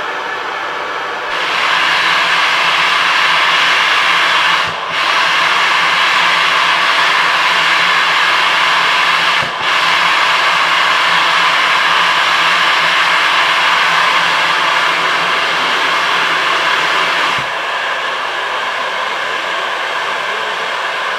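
Steam tank locomotive No. 403 hissing steam steadily while standing. The hiss gets louder about a second in, breaks off briefly twice, and falls back to a softer hiss near the end.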